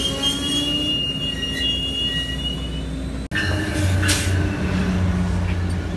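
Amtrak passenger cars rolling past at close range: steady rail and wheel noise with a thin, high, steady wheel squeal. After an abrupt cut about halfway through, a second passing train gives a lower, steadier drone with a sharp click.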